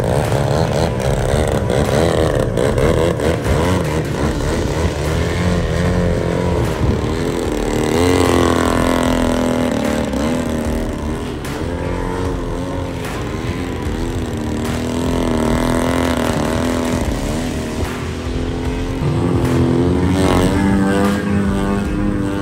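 Piston engines of RC model airplanes in flight, running continuously, their pitch rising and falling as the throttle changes and the planes pass.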